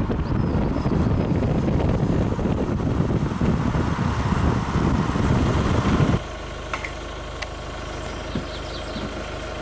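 Wind buffeting the microphone over the running noise of a moving vehicle. About six seconds in it cuts off abruptly, leaving a quieter, steady low hum of an engine idling.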